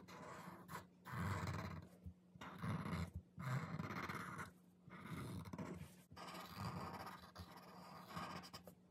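Black Sharpie permanent marker drawn over paper in a string of short scratchy strokes with brief pauses between them, tracing an outline.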